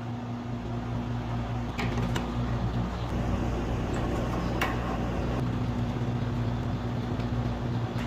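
Steady electric motor hum with a few light clicks, the first two close together about two seconds in and another midway.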